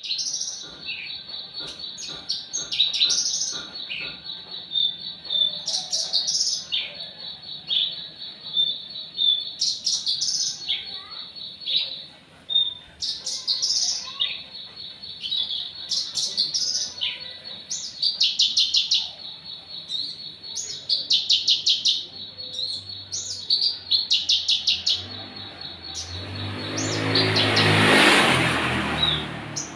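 A small bird chirping and trilling over and over, with short high notes and quick rattling trills. Near the end a loud rush of noise swells and fades, like a motor vehicle passing.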